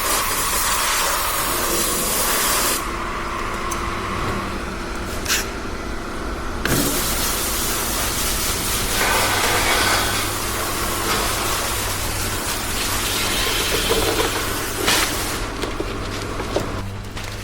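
Compressed air hissing in two long bursts, the second lasting about nine seconds, over a steady low machine hum.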